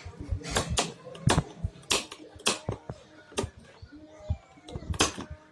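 Repeated sharp clicks of a vacuum cleaner's switch being worked by hand, roughly one or two a second at uneven spacing; the switch has been oiled so it moves lightly.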